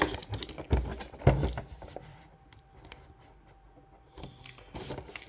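Clicks, taps and knocks of an action-figure box being handled and worked open, with two heavier knocks in the first second and a half, a quieter stretch, then more clicks near the end.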